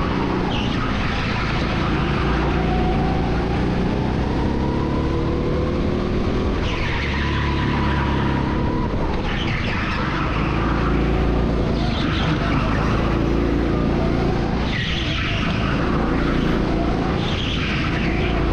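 Go-kart engine running hard, its pitch rising and falling as the kart accelerates and slows through the corners. Short bursts of tyre scrub come every two or three seconds.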